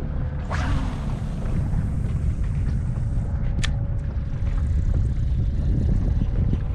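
Wind buffeting the camera microphone: a steady low rumble with hiss over it, and a single sharp click about three and a half seconds in.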